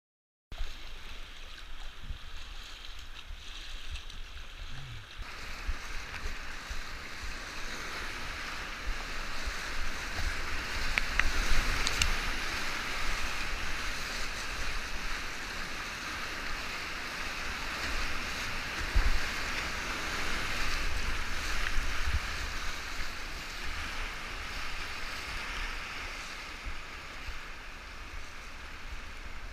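Steady rush of river rapids heard from on board a whitewater kayak. It grows louder about ten seconds in and eases somewhat near the end.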